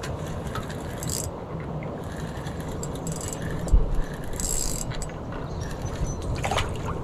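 Spinning fishing reel being cranked in short bursts as a hooked fish is wound in on a bent rod, with a brief low thump about four seconds in.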